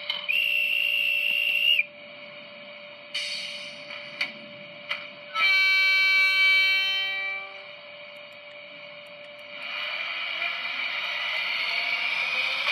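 Sound effects for an HO-scale model S-Bahn train at a station: a short steady high whistle, a few clicks, and a horn-like tone of about two seconds that fades out. About ten seconds in, a running noise sets in with a slowly rising whine as the train starts to pull away.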